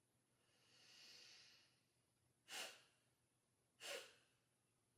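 A woman doing Kapalbhati breathing: a slow, soft inhale through the nose, then two short, forceful exhales through the nostrils about a second and a half apart, each one snapping the belly back.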